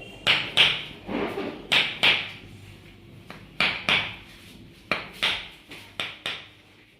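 Sharp hand slaps in quick pairs, five pairs in all, each pair a double smack about a third of a second apart.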